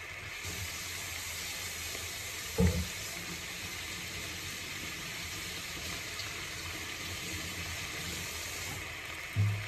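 Ground-meat patties sizzling in a frying pan, a steady hiss that rises about half a second in. Two dull low thumps break through, the louder one near the end.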